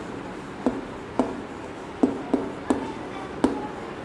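Chalk writing on a chalkboard: about six sharp taps at uneven intervals as letters are struck, with faint scratching between them.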